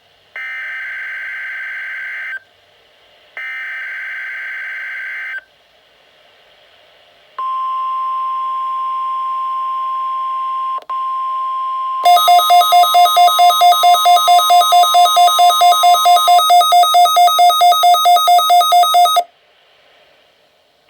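NOAA Weather Radio weekly test received on a Midland WR-120EZ weather radio: two short bursts of SAME digital header data in the first few seconds, then after a pause a steady single-pitch attention tone. About halfway through the radio's own alarm cuts in over it, a loud, rapidly pulsing beep that runs on after the tone stops and ends abruptly about two seconds before the end.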